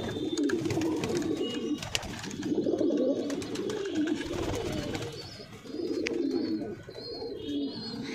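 A flock of domestic pigeons, fancy and desi breeds, cooing continuously over one another in an enclosed loft, with a few sharp clicks among them.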